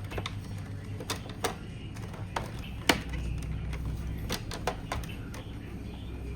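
Scattered sharp clicks and taps of a PlayStation 5's plastic parts being handled and pressed into place during reassembly, the loudest about three seconds in, over a steady low hum.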